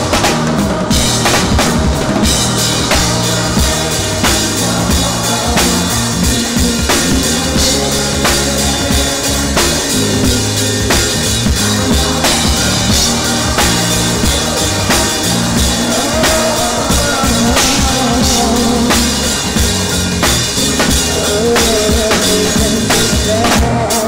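Live band playing an R&B groove, with a drum kit keeping a steady beat over a stepping bass line.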